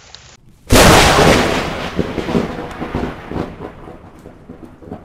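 A sudden loud thunderclap starting under a second in, fading over about four seconds through a rumbling tail with scattered crackles, then cut off abruptly.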